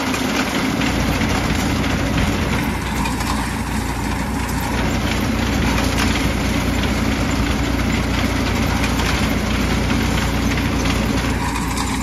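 New Holland 3600-2 tractor's diesel engine running steadily while it drives a front-mounted reaper binder cutting wheat and throwing out tied bundles, the cutter bar and binder mechanism clattering under the engine noise.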